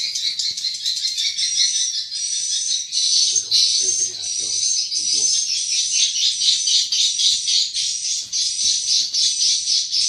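Edible-nest swiftlet calls: a dense, continuous high-pitched twittering that fills the swiftlet house at a steady level.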